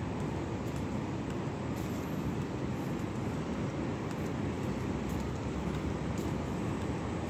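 Steady low rumble of city background noise, even throughout with no distinct events.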